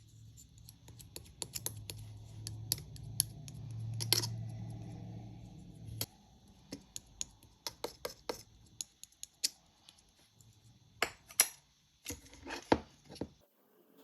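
Slime being squeezed and pressed by hand, giving irregular sharp clicks and pops several times a second, with a low steady hum under the first six seconds. The sound cuts off just before the end.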